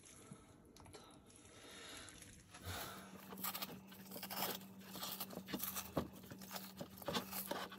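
Hands tearing the skin and flesh of soaked dried cod apart, a quiet wet crackling and tearing that grows busier about three seconds in. A faint steady hum joins at about the same point.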